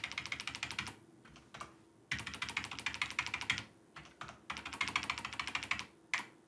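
Computer keyboard keys tapped in three rapid runs of about a second and a half each, with a few single key presses in between.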